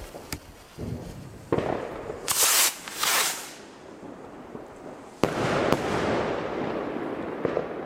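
Two Zink Z1 bouquet rockets launching from a stand: each climbs with a loud rushing hiss, about two and three seconds in. Near the five-second mark they burst with two sharp reports about half a second apart, followed by a noisy tail that fades over about two seconds.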